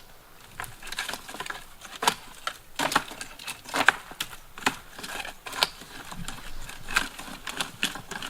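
Footsteps on dry ground, an irregular series of crunches and crackles.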